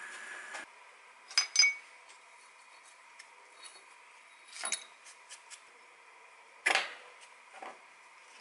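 A steady milling-machine hum with a hole saw cuts off sharply about half a second in, followed by a few sharp metallic clinks and knocks as loose cut metal pieces are moved on the steel vise, the loudest a quick pair about a second and a half in.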